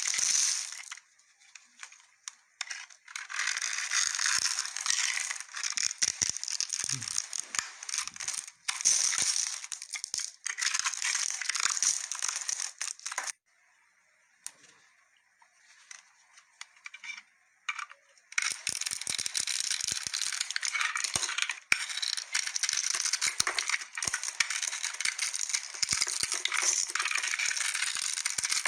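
A knife carving a bar of soap: scratchy scraping and shaving strokes in long stretches. It stops briefly near the start, then again for about five seconds midway, and resumes.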